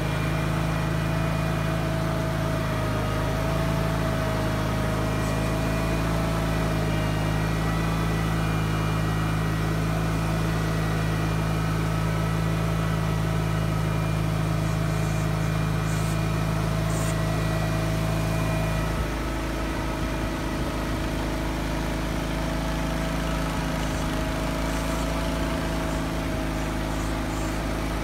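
1973 Wheel Horse Auto 18 garden tractor's engine running steadily; about two-thirds of the way in its note changes and it gets a little quieter.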